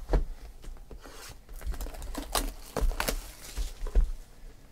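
Cardboard trading-card boxes being handled and set down on a table: a string of short knocks and scrapes, with a stretch of crinkling from the packaging about three seconds in.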